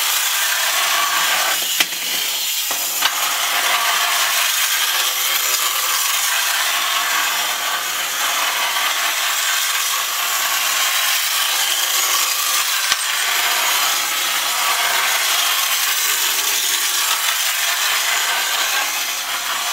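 Clockwork motors of wind-up tin tram toys running as the toys travel across a hard floor: a steady whirr with a few sharp clicks.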